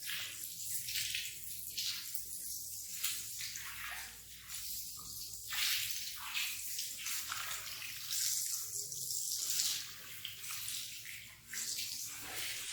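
Water spraying onto and splashing off a wet rug being rinsed: an uneven hiss that swells and fades every second or so.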